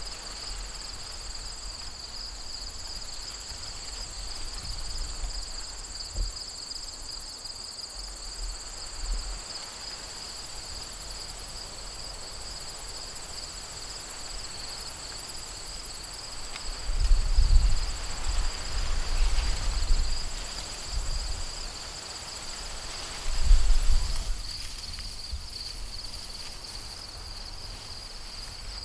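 Steady chorus of field insects trilling high and continuously. Two louder spells of rumble and rustle, likely wind gusting on the microphone and through the crops, break in: a longer one a little over halfway in and a short one shortly after.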